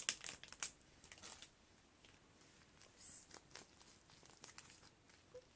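Packaging being handled and unwrapped: faint crinkling and tearing with scattered small clicks, and a short rustle about three seconds in.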